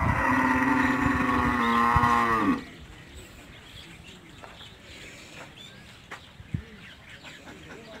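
Cattle mooing: one long, loud call of about two and a half seconds that drops in pitch as it ends.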